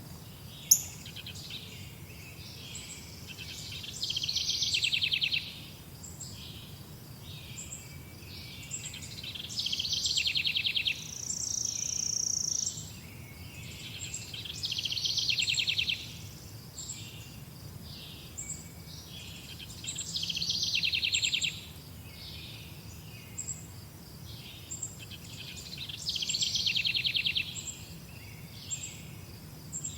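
Birds singing outdoors: a fast trill about a second and a half long repeats roughly every five to six seconds, with short high chirps scattered between, over a faint low hum.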